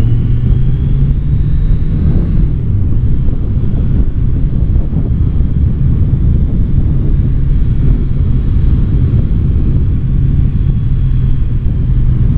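Motorcycle engine pulling hard, its note rising, then easing off about two seconds in and running steadily through the bends over a heavy low wind rumble.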